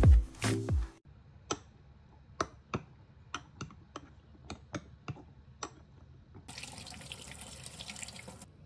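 Background music stops about a second in. About a dozen sharp, irregular clinks follow: a spoon striking the inside of a glass jar while stirring overnight oats. Near the end, a tap runs water over blueberries in a plastic colander for about two seconds.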